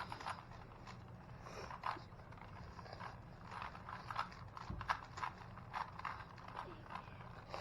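Plastic Rubik's cubes being turned quickly by hand: a rapid, irregular clatter of layers clicking and snapping into place.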